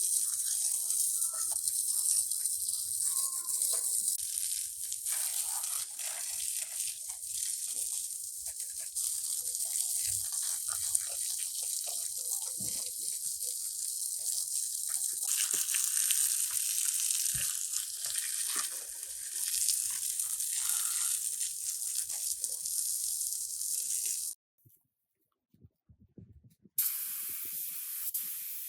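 A steady high-pitched hiss, in several abruptly changing stretches, that drops to near silence for about two seconds near the end.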